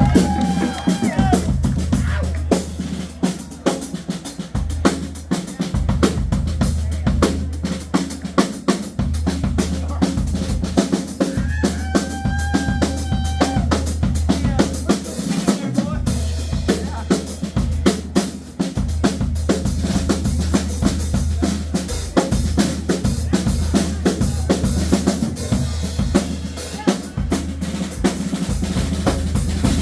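A rock band's drum kit playing live, kick, snare and rimshots in a steady driving beat, over a low sustained bass line that drops out briefly a few times. A couple of short held notes sound near the start and again about twelve seconds in.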